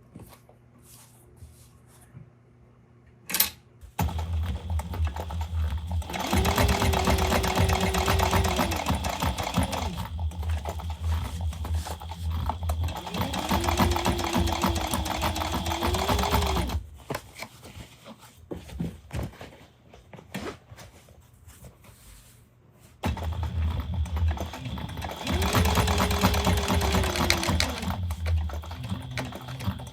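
Sewing machine stitching in two long runs, the first starting about four seconds in and lasting around thirteen seconds, the second covering the last seven seconds or so; in each run the motor's whine climbs as it speeds up, holds, then drops as it slows. A single sharp click comes just before the first run.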